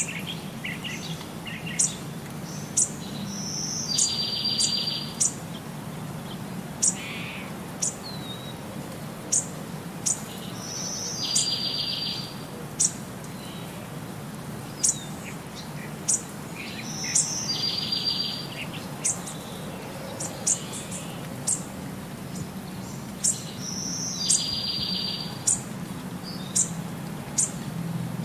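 Birds chirping: short, sharp high chirps scattered throughout, and a trilling phrase that comes back about every seven seconds, over a low steady hum.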